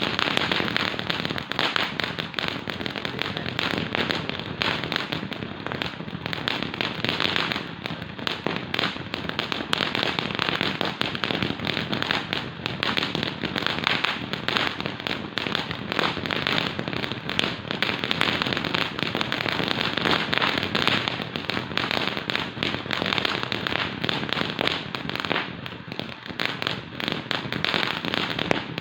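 Consumer fireworks crackling without a break, a dense run of rapid small pops.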